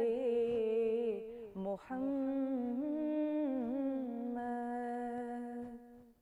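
A woman's voice humming a slow naat melody without words, in long wavering held notes. It breaks briefly for breath about a second and a half in and fades out near the end.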